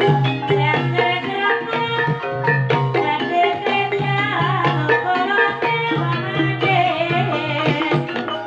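Gamelan music with hand-drum strokes and ringing metallophone notes, the accompaniment for an ebeg (kuda kepang) horse dance.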